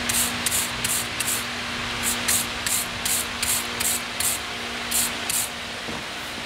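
A hand wire brush scrubbing the metal end fitting of a model steam locomotive's superheater element, in quick back-and-forth strokes of about three a second, in runs that stop about five and a half seconds in. It is cleaning crud and corrosion off the fitting's seal surface.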